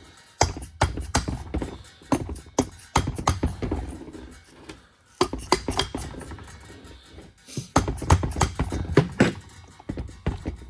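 Repeated sharp whacks on the cylinder of a 1993 Honda CR250's two-stroke engine to break it loose from the crankcase during a top-end teardown. The blows come in irregular groups with short pauses between them.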